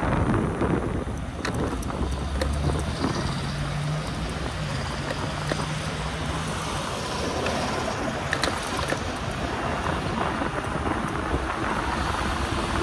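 Wind buffeting the microphone and road noise from an e-bike ride in traffic, as a steady rush with a few short clicks and a low hum for a few seconds about a third of the way in.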